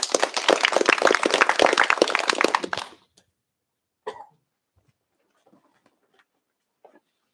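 Audience applauding: a dense patter of claps for about three seconds that then stops, followed by a few faint knocks and shuffles.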